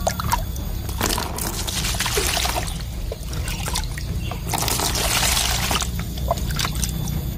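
Water scooped with a plastic dipper and poured back into a bucket of water, splashing and trickling in two spells with small knocks of the dipper in between.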